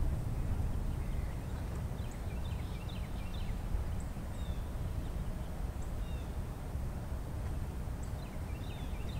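Low, steady outdoor rumble with small birds chirping faintly in short scattered bursts, a cluster a couple of seconds in and again near the end.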